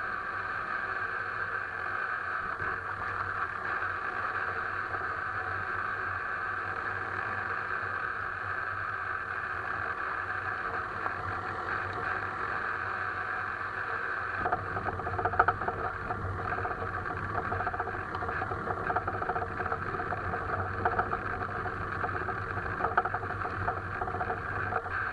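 Alfa Romeo 159 on the move, with a steady hum of engine and road noise. From about halfway through it turns rougher, with irregular sharp knocks: the suspension knock the owner is trying to find.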